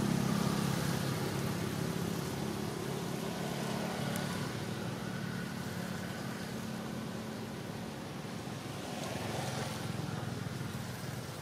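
A motor engine running steadily at a low pitch, slowly fading, over an even background hiss.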